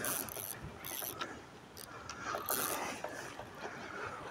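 Spinning reel working in short, irregular bursts of whirring and clicking while a hooked carp pulls against the line.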